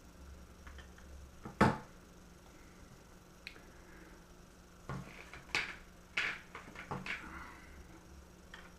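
Small clicks and taps of a tool and small parts being handled while putting a part back into an opened laptop: one sharp knock about a second and a half in, then a quick cluster of clicks a few seconds later.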